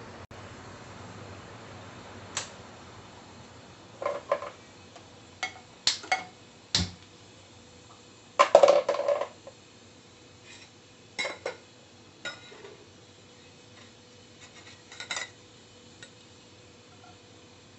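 Scattered sharp clicks and knocks of handling at a gas stove, with the loudest quick cluster of clicks about eight and a half seconds in as a hand turns the stove's knob to light the burner under an empty pan.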